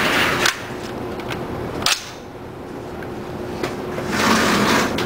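A few light, sharp clicks and knocks over steady background noise, the clearest just under two seconds in; no gunshot.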